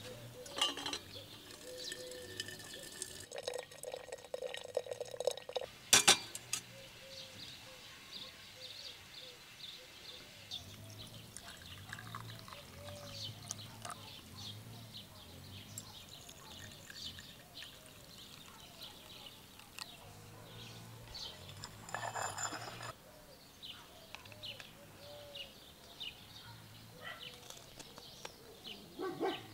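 Liquid being poured: hot water running from a samovar tap into a glass teapot, then tea poured from the teapot into porcelain cups, with a sharp glass clink about six seconds in. Small birds chirp throughout.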